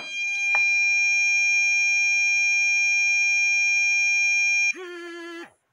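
Anti-bark dog collar beeping: one long, steady, high-pitched beep set off by a bark, cutting off after about four and a half seconds. It is followed by a quieter, lower wavering buzz for under a second.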